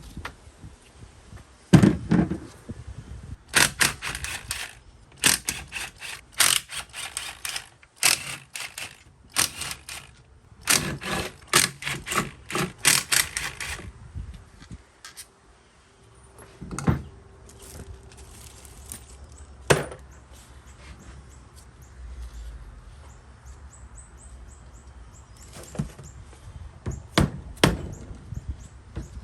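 Quick runs of sharp knocks and clatter from hand tools on a motorcycle engine being taken apart, through the first half, then a few single knocks later on.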